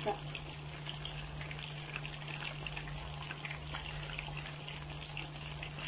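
Tuna pieces deep-frying in hot cooking oil in a pan: a steady sizzle full of fine crackles and occasional small pops.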